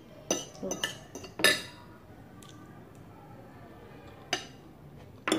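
Metal fork and spoon clinking and scraping against a ceramic plate of rice. A quick run of clinks comes in the first second and a half, some with a short metallic ring, then single clinks about four seconds in and near the end.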